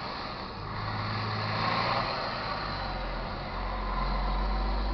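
Road vehicles passing: engine hum and tyre noise that swells about two seconds in, with a deeper engine rumble building toward the end.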